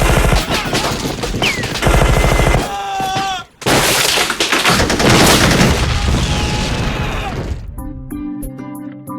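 Sound-effect machine-gun fire in two rapid bursts, a falling pitched whine, then a loud sustained blast of noise that dies away. Music with a steady beat comes in near the end.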